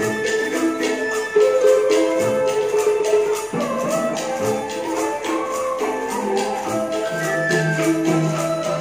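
Traditional Vietnamese music played live by a small ensemble: notes plucked on a zither and other strings over a steady, light jingling beat of hand percussion.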